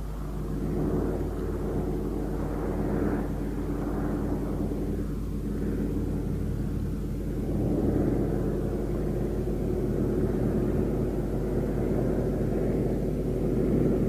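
Propeller aircraft engines droning steadily in flight, growing a little louder about halfway through.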